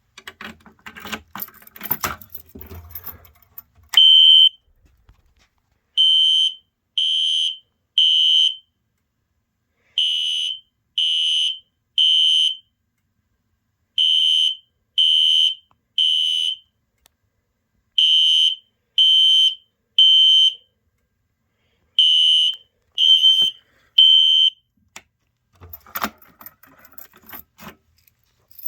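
System Sensor SpectrAlert Classic horn strobe sounding a high-pitched horn in the temporal-three fire alarm pattern: groups of three short blasts with a pause between groups, five groups in all after one opening blast. The pull station has just been set off with its key. Key clicks and handling noise come before the horn and after it stops.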